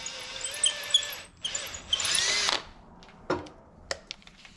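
Power drill running in two short bursts, boring into fiberglass, the second burst rising in pitch as it spins up, then a few light knocks.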